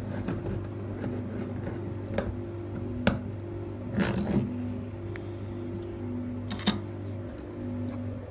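A few sharp metal clicks and clinks, with a short rattle about four seconds in, from handling a hardened steel shutter lock and its picking tools, over a steady low hum.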